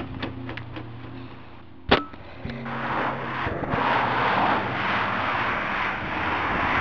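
A few light clicks and a single sharp knock about two seconds in, then road traffic: cars driving along a dual carriageway with a steady tyre hiss that swells as they pass.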